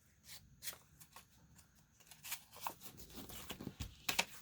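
Small paper envelopes and cards being handled: light rustling with scattered crisp ticks that grow busier in the second half, the sharpest near the end.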